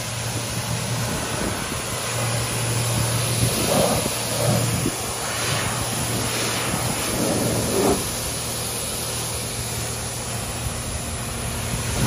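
Electric ride-on vacuum road sweeper running: a steady hiss with a low, even hum underneath.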